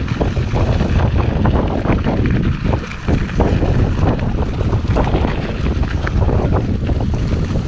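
Wind buffeting the microphone of a mountain biker's helmet camera while the bike rolls along a dirt singletrack. Many quick clicks and rattles from the bike running over the rough trail come through the rumble.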